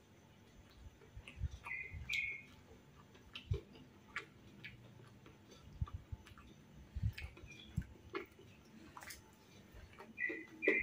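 Close-miked chewing of crispy fried tahu bakso with rice: scattered crunches, low jaw thuds and wet mouth clicks. A few short high chirps come about two seconds in and again near the end.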